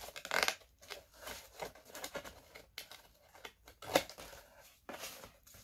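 Scissors cutting through a sheet of wallpaper, a run of irregular snips and paper rustles with one sharper snip about four seconds in.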